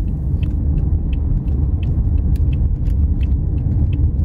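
Road noise inside a moving car's cabin: a steady low rumble from the tyres and engine, with faint light clicks scattered through it.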